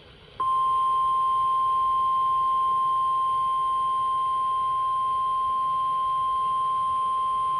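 NOAA Weather Radio's 1050 Hz warning alarm tone: a single steady pure tone that starts about half a second in and holds unchanged. It signals that a warning broadcast, here a relayed severe thunderstorm warning, is about to follow.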